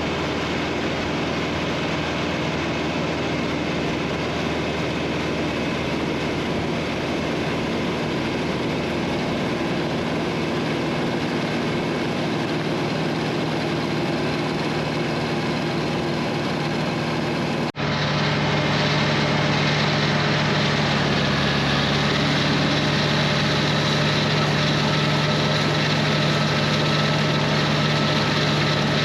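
John Deere 3020 tractor engine running steadily, with a Bush Hog disc mower working behind it. The sound breaks off abruptly about 18 seconds in and resumes a little louder, with a stronger steady low hum.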